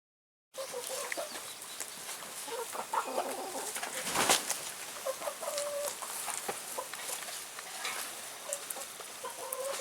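A flock of laying hens clucking, with many short, scattered calls. A brief louder noise cuts through about four seconds in.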